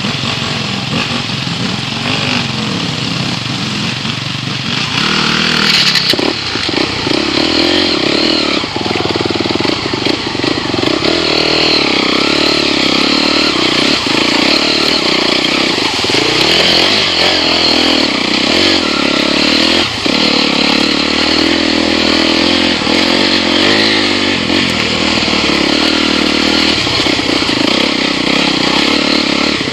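Enduro motorcycle engine running, heard from on the bike, the throttle rising and falling as it rides a rough trail. It picks up noticeably about five seconds in.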